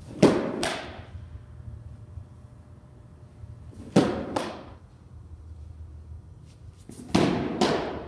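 Softball pitches smacking into a catcher's mitt, three times about every three and a half seconds. Each catch comes as two sharp smacks close together.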